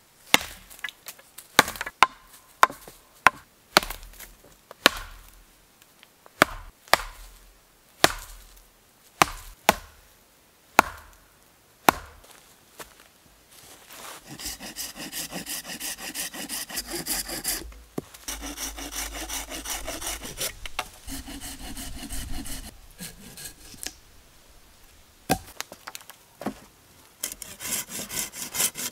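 A dozen or so sharp wooden knocks, about one a second. Then, about halfway through, a folding pruning saw cutting through wooden stakes and a birch log in quick, steady back-and-forth strokes, with short pauses between cuts.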